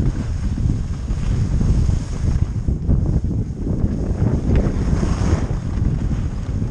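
Wind rushing over a GoPro's microphone while skiing downhill, a loud unbroken low rumble. Under it, the hiss and scrape of skis sliding over packed groomed snow.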